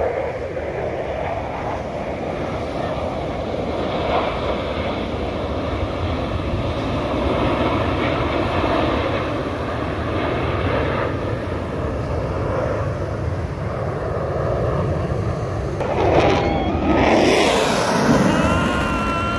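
Military jet engines running overhead, a steady loud rush. Near the end, over the last few seconds, the pitch sweeps down and up as a jet passes.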